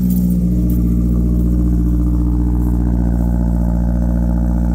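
Mazdaspeed 3's turbocharged 2.3-litre four-cylinder engine running at a steady speed, its low hum holding one pitch throughout.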